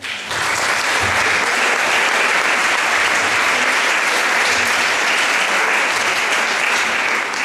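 Audience applauding, breaking out at once and holding steady before dying away near the end.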